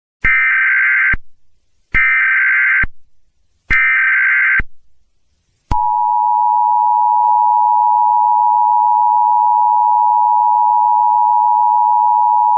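Emergency Alert System SAME header: three short bursts of screechy digital data tones, each just under a second and about 1.7 s apart. About six seconds in, the steady two-tone EAS attention signal starts and holds.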